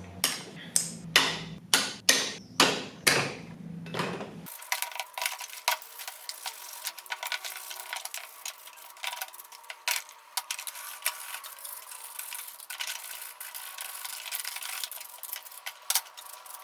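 Light hammer taps, about two a second, each with a short ring. A little over four seconds in they stop abruptly, and a run of faint small clicks and scrapes from hand work follows, over a faint steady hum.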